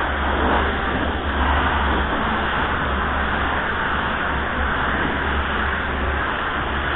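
Gravity-feed paint spray gun hissing steadily as compressed air atomises the paint, over a low steady hum.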